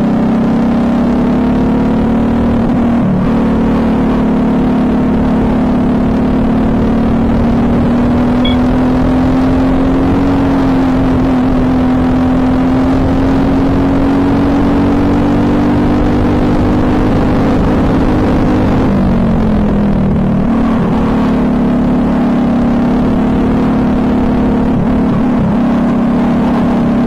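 Briggs & Stratton LO206 four-stroke single-cylinder kart engine running hard at race speed, heard close up from the driver's seat. Its pitch climbs slowly along the straight, drops briefly about two-thirds of the way through as the kart slows for a corner, then climbs again.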